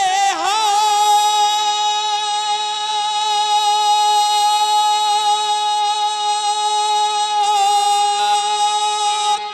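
A singer holding one long, high sustained note over a PA system in rasiya folk singing. The note wavers at the start, then stays steady for about nine seconds and fades near the end.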